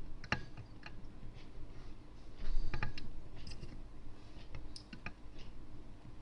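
Scattered light clicks and taps of a soldering iron and small tools being handled at a soldering bench, with one louder knock about two and a half seconds in.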